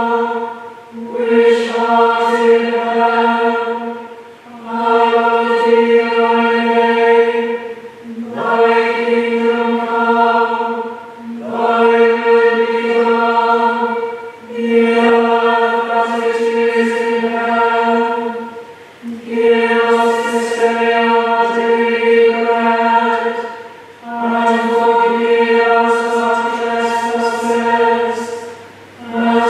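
Chapel choir chanting on a steady, near-unchanging reciting note, in phrases of about three to four seconds with short breaks between them, in a reverberant chapel.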